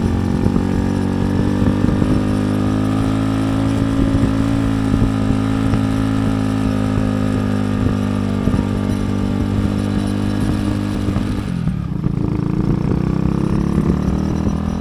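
Motorcycle engine running steadily under load while climbing a steep uphill road. The revs drop briefly about twelve seconds in, then climb again.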